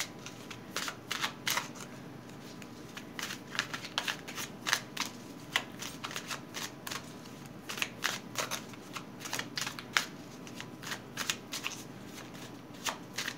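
A deck of tarot cards being shuffled by hand: a long run of quick papery flicks and slaps, coming in irregular clusters.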